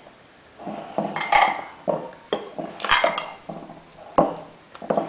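A large spoon scraping and knocking against a mixing bowl in irregular strokes, roughly one every half second to second, as beaten egg whites are folded into pancake batter.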